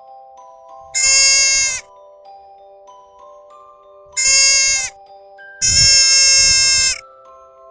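An animal calls three times, each a loud, steady-pitched call of under a second to over a second, the last the longest, over soft mallet-percussion background music.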